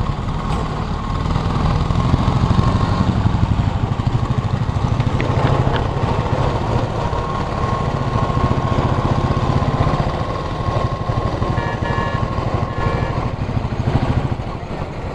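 Royal Enfield Bullet's single-cylinder engine running steadily at low road speed, heard from the saddle. A few short faint beeps come about three-quarters of the way through.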